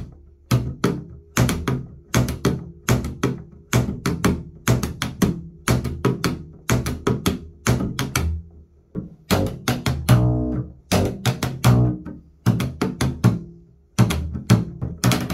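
Upright double bass played with rockabilly slap technique, running chop quads: a plucked bass note followed by quick percussive clicks of the strings slapping against the fingerboard, repeated in a fast, steady rhythm.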